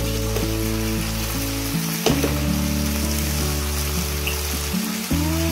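Chicken and onion filling sizzling in a frying pan, stirred with a steel spoon at the start. Slow background music of held notes runs over it, the notes changing every couple of seconds.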